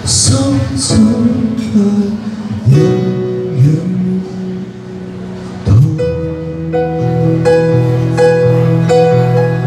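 A live song: a singer's voice over a Roland XV-88 keyboard. From about six seconds in, the keyboard holds steady notes with a repeating pattern.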